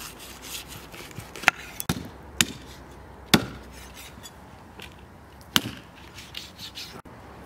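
Large kitchen knife chopping a raw whole turkey on a wooden stump chopping block: about five sharp chops at uneven intervals, with quieter cutting in between.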